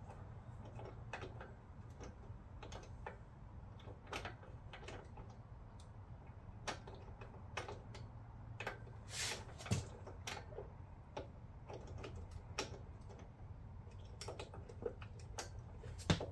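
Ratchet with a 5/8 spark plug socket clicking in short, uneven runs of ticks as a new spark plug is threaded into the engine's cylinder head and tightened. A faint steady low hum sits underneath.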